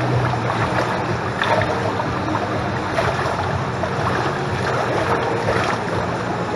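Swimming-pool water sloshing and lapping against the tiled pool edge close to the microphone: a steady wash of noise with a few small splashes.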